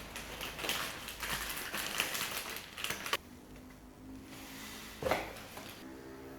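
Packaging being handled during an unboxing: about three seconds of rustling, crinkling and tapping that stops abruptly, then a single knock about five seconds in.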